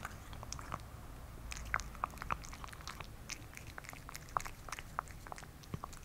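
Gray tabby cat eating from a ceramic bowl: a quick, irregular run of small chewing and lapping clicks.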